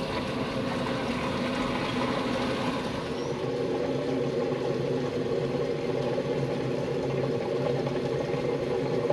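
Motorhome engine idling steadily, a low even hum.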